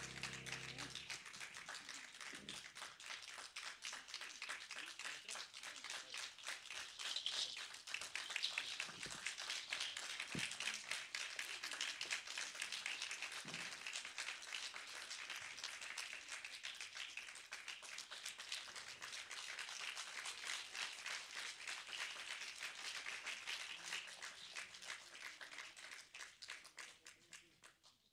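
Audience applauding: a steady patter of many hands clapping that fades away near the end. A held musical note stops about a second in.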